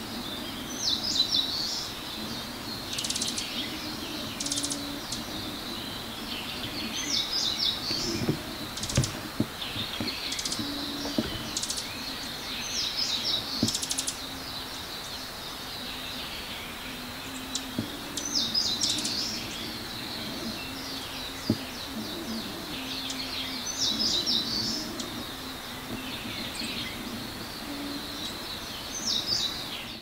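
Eastern crowned warbler (Phylloscopus coronatus) singing, its high phrases coming back every few seconds. Between them come rapid high "chu-chu-chu-chu" calls from near the ground, which the recordist takes most likely for a chick or fledgling of the same species.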